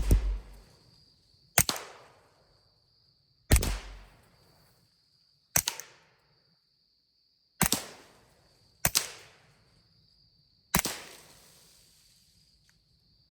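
Six suppressed pistol shots fired singly, about two seconds apart, each with a short echo tailing off. They are subsonic rounds from a 9mm Glock 19 with a CAT SC suppressor and a Taurus TX22 .22 LR with a CAT SR suppressor. A faint steady high-pitched tone sounds between the shots.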